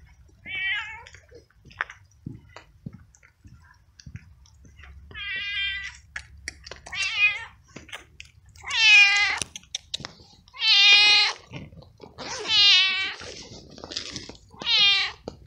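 Hungry stray tabby cat meowing very loudly and over and over, about eight meows, the longest and loudest ones in the middle: begging for food.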